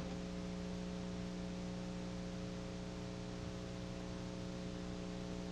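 Steady electrical mains hum under a constant hiss, with no other sound.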